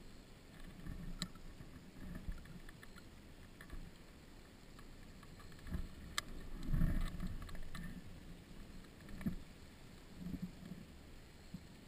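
Muffled low rumble of a dirt bike rolling slowly over a rocky dirt track, with scattered knocks and rattles and a louder knock and rumble about six to seven seconds in.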